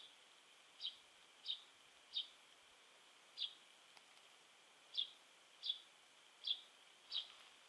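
Pheasant chicks peeping: about nine short, high, faint peeps, each falling slightly in pitch, spaced roughly half a second to a second apart with a longer pause midway.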